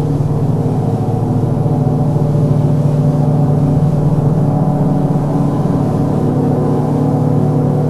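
Space ambient music: a steady, deep drone of sustained low tones with no beat.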